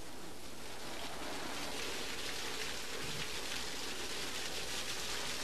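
Laboratory emergency safety shower running: a steady rush of water pouring down and splashing onto the floor.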